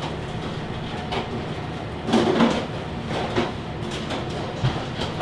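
Steady hum of a commercial kitchen's ventilation, with a few light knocks and a brief clatter about two seconds in.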